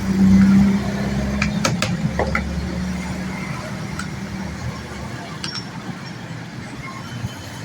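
Electric grinder with a newly fitted armature running with a steady hum, fading slowly, with a few sharp clicks about two seconds in.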